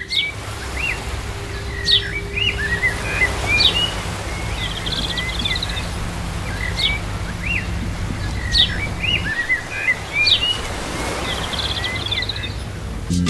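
Birds chirping: the same short phrase of quick chirps and brief trills comes back about every one and a half seconds, over a steady low rumble.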